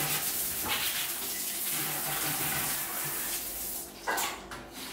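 Water spraying from a handheld bidet sprayer, a steady hiss that stops about four seconds in.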